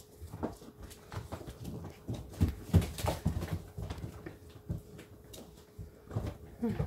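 English Springer Spaniel puppies playing on a wooden floor: scattered thumps, knocks and scuffles of paws and bodies, with a short falling puppy whimper near the end.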